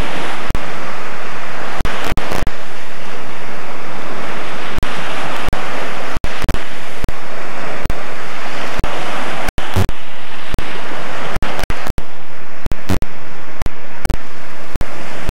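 Loud, steady rush of small sea waves washing onto a sandy beach, broken by many brief crackles and dropouts.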